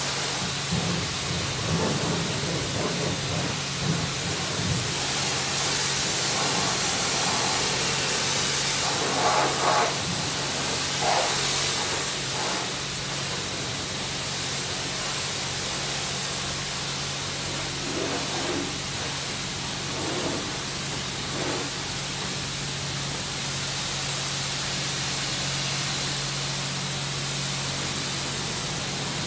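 Self-serve car wash pressure-wash wand spraying high-pressure rinse water onto a car: a steady hiss of spray, louder for a few seconds around the middle, over a steady low hum.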